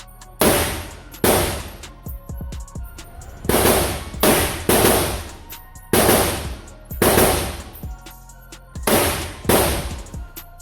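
A string of gunshots, about ten at irregular spacing, each a sharp crack with roughly half a second of echo dying away. Background music plays underneath.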